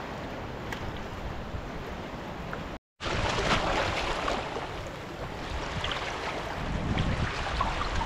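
Sea water washing and lapping over lava rocks along the shoreline, an even splashing hiss with small trickles and drips. It drops out for a moment about three seconds in, then comes back brighter and builds a little toward the end.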